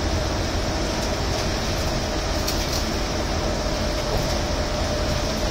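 Interior running noise of a city bus in motion: a steady low rumble with a constant hum. Faint rattles come about two and a half seconds in and again near the end.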